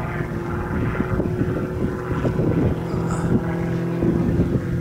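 Piston engine and propeller of an aerobatic monoplane droning at a steady pitch, with wind buffeting the microphone.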